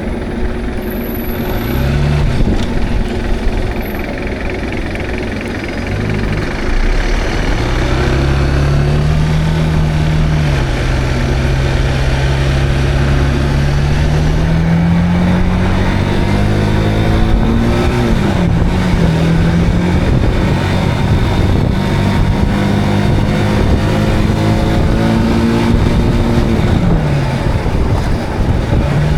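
Zontes cruiser motorcycle engine under way, its pitch climbing as it accelerates and dropping at each gear change, three times after a lower-pitched start, with steady wind and road rush on the camera microphone.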